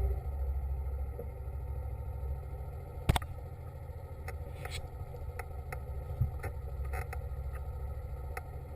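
Small engine running steadily at low speed, its low hum easing down at the start, with one sharp click about three seconds in and a scatter of light ticks and knocks after it.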